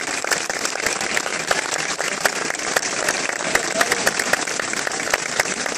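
Crowd applauding: a dense wash of hand clapping with sharper single claps standing out.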